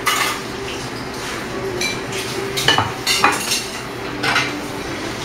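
Cutlery clinking against plates at a dining table: several sharp clinks, the loudest a quick cluster about three seconds in, over a steady background hum.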